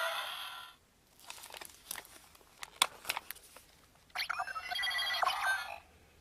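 Zyuoh Changer Final toy playing electronic sounds through its small speaker: its jingle fades out in the first second, followed by a few clicks of handling or button presses. About four seconds in, a short electronic beeping tone effect plays for about a second and a half.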